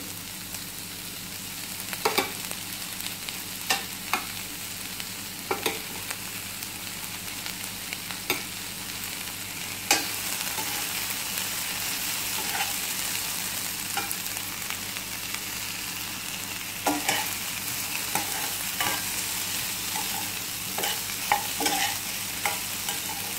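Chopped onions and capsicum sizzling in olive oil in a stainless steel pan, with a steady hiss. A utensil clicks and scrapes against the pan as it stirs every couple of seconds, more often near the end.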